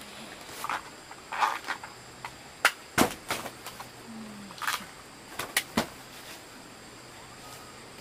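Irregular sharp knocks and clicks, about half a dozen, the loudest two close together about three seconds in, over a faint steady high-pitched background.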